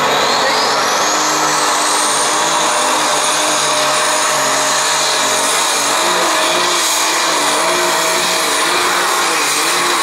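Methanol-fuelled, turbocharged Super Stock pulling tractor running flat out under load, pulling the weight sled. A high turbo whine rises over the first two seconds and then holds, and in the second half the engine note wavers up and down.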